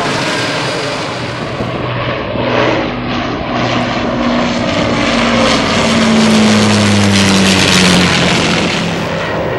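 Boeing 787 jet engines whooshing overhead, cut after about two seconds to an Avro Lancaster's four Rolls-Royce Merlin piston engines and propellers droning through a low flyby. The drone is loudest and its pitch drops slightly as the bomber passes, near the end.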